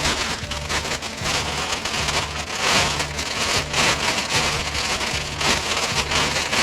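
Plastic ground sheet rustling and crinkling as it is unfolded and spread out, a dense, irregular crackle. A faint low pulsing background tone runs beneath it.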